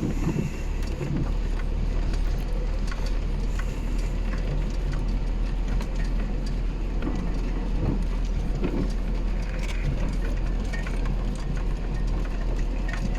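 GAZelle van driving on a rough dirt road, heard from inside the cab: a steady low drone of engine and tyres with frequent scattered rattles and knocks from the bumps.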